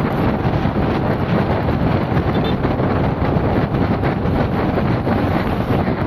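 Wind buffeting the microphone: a loud, steady rushing noise, heaviest at the low end, with a fluttering loudness.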